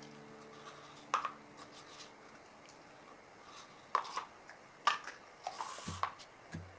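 A few light, sharp clicks and taps: a paper cup and utensils handled against a stainless steel mixing bowl of ground pork as seasonings go in. Background music fades out at the start, and faint low beats come back in near the end.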